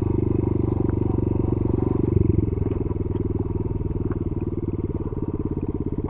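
Honda Monkey's small single-cylinder four-stroke engine running at low, steady revs, its exhaust pulsing evenly, with a brief rise about two seconds in.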